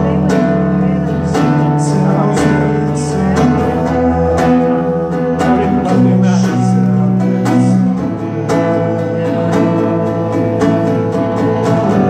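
Acoustic guitar played live, with a man singing over it into a microphone.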